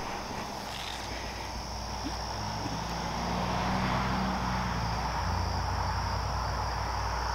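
Evening chorus of crickets and other insects, a steady high-pitched trill with no breaks, over a low steady hum.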